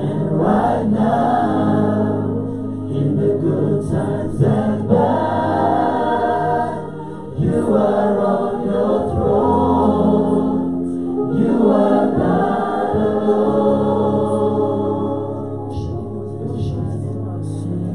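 Worship team singers singing a gospel praise song together, several voices in harmony, over steady instrumental backing with long held low notes; the singing pauses briefly about seven seconds in.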